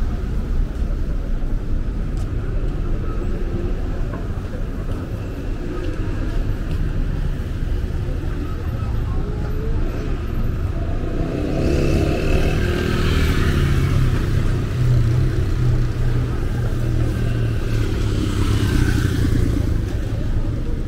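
Road traffic: a steady low engine rumble with vehicles passing, swelling with tyre and engine noise about halfway through and again near the end.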